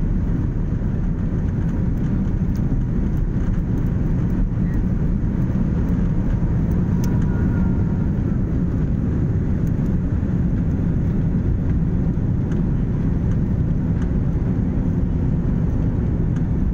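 Jet airliner cabin noise during the takeoff roll and lift-off: a loud, steady, deep rumble of the engines at takeoff power and the wheels on the runway, heard from inside the cabin.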